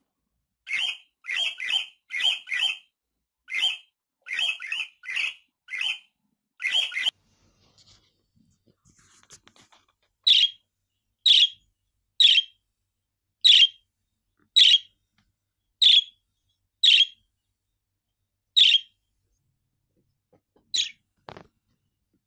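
A budgerigar chirping. First comes a fast, scratchy run of about fifteen chirps in little clusters. After a brief pause it gives a string of about nine single, clearer chirps, roughly one a second.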